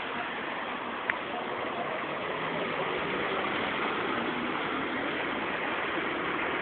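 Steady hiss of tyres and traffic on a rain-soaked freeway, with one short click about a second in.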